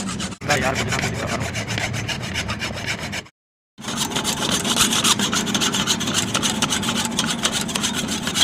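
Hacksaw cutting back and forth through the steel clamping end of a Honda CD 70 kick-start lever, in quick rasping strokes, breaking off briefly a little past three seconds in. The unthreaded side of the lever's clamp is being slit so it can close tighter on the kick shaft's splines and take out the lever's play.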